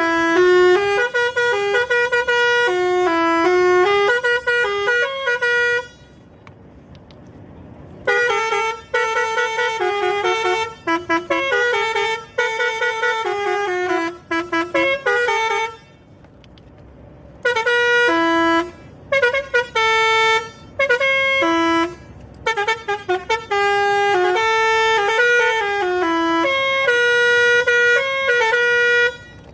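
Basuri musical air horn on a truck playing a tune of short stepped notes in four passages, pausing about six seconds in, again near sixteen seconds and briefly near twenty-two seconds.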